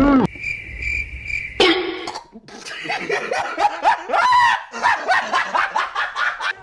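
Non-word voice sounds, like coughs, grunts and laughs, following a steady high tone that lasts about a second near the start.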